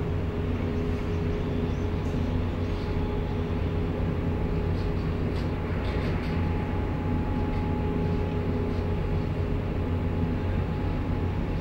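Steady low mechanical rumble with a constant hum over it.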